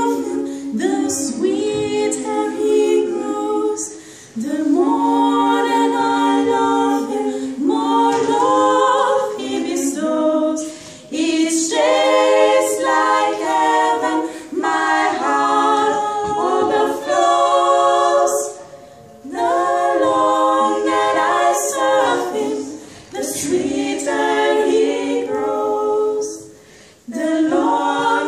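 Three women singing a cappella in harmony, in long held phrases broken by short pauses for breath.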